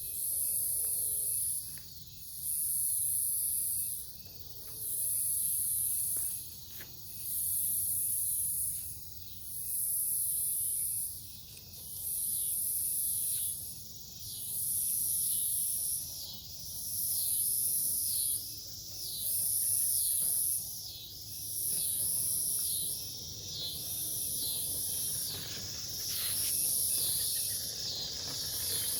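Night insect chorus, the cicadas of the title: a loud, high, shrill buzz that swells on and off about every two seconds. About halfway in, a second, lower insect joins, chirping rapidly, about three times a second.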